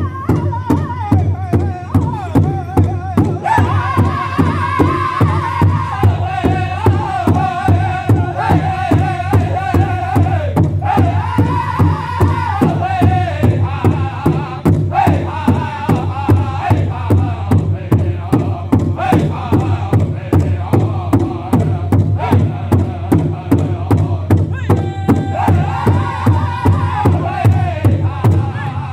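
Powwow big drum struck in a steady, even beat by a group of seated drummers, who sing together over it in high, wavering voices.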